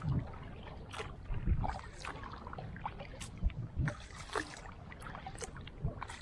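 Kayak paddling on a lake: the paddle blades dipping into the water at an irregular pace, with drips and small splashes between strokes and a few low thumps.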